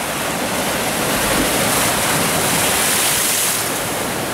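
Rough surf washing over and breaking against a rock breakwater: a steady rushing of water that swells a little in the middle.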